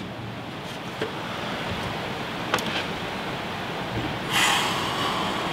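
A climber moving on the holds of a steep indoor climbing board, over steady room noise: a couple of light taps, then about four seconds in a short breathy rush of noise, the loudest moment.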